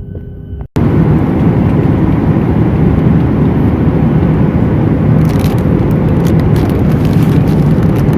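Loud, steady roar of a jet airliner heard from inside the cabin, cutting in abruptly under a second in after a brief held tone. Faint light rattles come in over the last few seconds.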